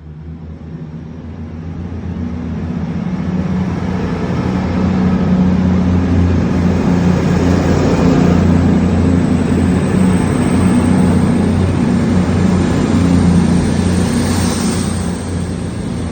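Voyager diesel multiple unit running through the station, its underfloor diesel engines giving a steady low drone. The drone grows louder over the first five seconds, then holds.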